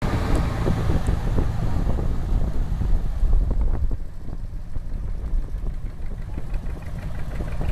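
Engines of vintage two-cylinder John Deere tractors running as they drive past: a steady low rumble with uneven popping, a little quieter after about four seconds.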